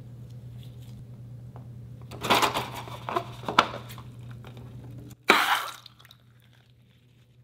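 Rubber balloons of slime ingredients being snipped with scissors and squeezed out into a glass bowl: a cluster of crinkly, squelchy noises in the middle, then a short loud rush about five seconds in as the water balloon empties into the bowl.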